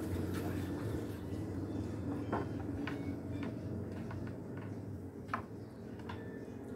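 A few short knocks and clunks on a wooden canoe's hull as a man shifts his feet and takes up a paddle, the loudest about five seconds in, over a steady low hum.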